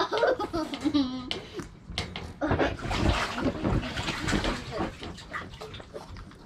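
A Frenchton dog mouthing, licking and pawing at a water-filled rubber balloon: a run of irregular wet smacking and clicking noises that fade near the end. A high voice is heard briefly at the start.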